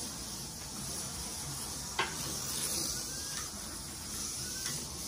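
Slot car running laps on a multi-lane routed track: a steady hiss from the car, with short rising whines as it comes round and a few sharp clicks, the loudest about two seconds in.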